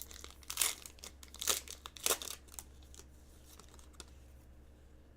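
Football card pack wrapper being torn open and crinkled by hand, several short rustles in the first two and a half seconds, then only faint handling.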